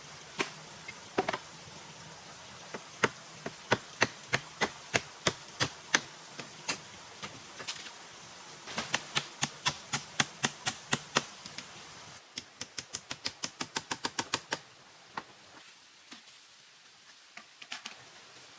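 Runs of sharp strikes from hand work on material, such as chopping or hammering. The strikes come about three a second at first, then in quicker bursts of five to six a second, and the last burst stops about three-quarters of the way through.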